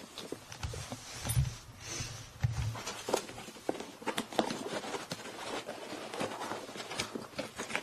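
Hard plastic pistol case being flexed and pried apart at its locked side: a run of sharp clicks and knocks from the shell, with a few low thumps in the first few seconds.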